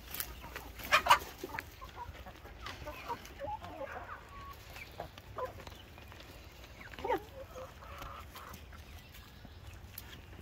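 Hens clucking at intervals with short, scattered calls. A couple of sharp knocks about a second in are the loudest sounds.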